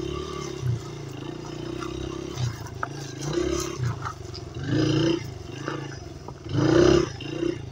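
Dirt bike engine running while riding, its note rising and falling with the throttle in several surges, the loudest near the end.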